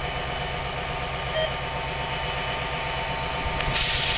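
A steady engine rumble at idle, with a low hum, and one short beep about a second and a half in; a rushing hiss comes up near the end.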